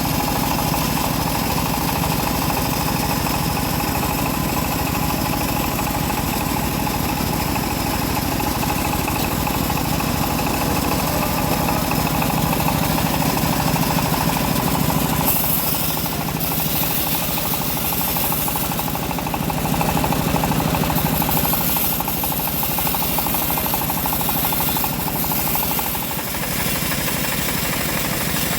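Homemade bandsaw sawmill running steadily, its engine beating fast and even; the sound grows brighter and hissier for several seconds past the middle.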